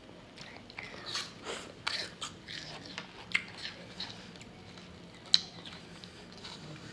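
Pieces of ice bitten and chewed, crunching and cracking at irregular intervals, with one sharp crack louder than the rest about five seconds in.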